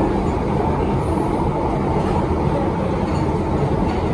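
1972 Stock London Underground train heard from inside the carriage while under way: a steady, unbroken rumble of wheels on rail with a faint constant whine running through it.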